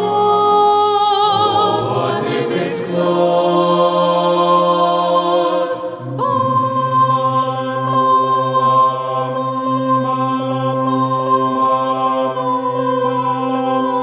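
A cappella mixed choir of men and women singing slow, sustained chords, with a new, fuller chord coming in sharply about six seconds in.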